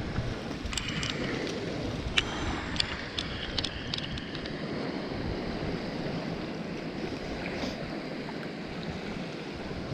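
Small waves washing up and draining back over a sandy beach, with wind on the microphone. A few sharp clicks come in the first few seconds.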